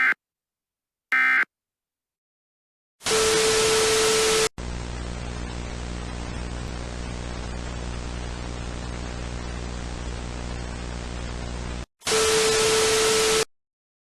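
Two short chirping bursts of Emergency Alert System digital data tones, the end-of-message code that closes an alert. About three seconds in comes a loud burst of static with a steady tone in it, then a quieter hiss over a low buzzing hum for about seven seconds, then a second short burst of loud static with the same tone.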